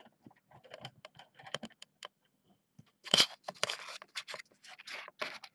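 Scattered light clicks and taps, then from about three seconds in a run of loud, scratchy rustling right at the microphone: kittens nosing and rubbing against the camera, their fur brushing over it.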